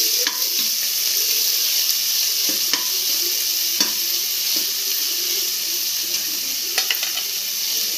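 Chopped onions, green chilli and ginger sizzling in hot oil in an aluminium pressure cooker with a steady hiss, while a steel ladle stirs them, scraping and clinking against the pot a few times.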